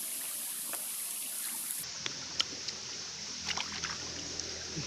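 Quiet eating of raw clams: a few faint clicks and wet mouth sounds, including a small cluster near the end, over a steady background hiss.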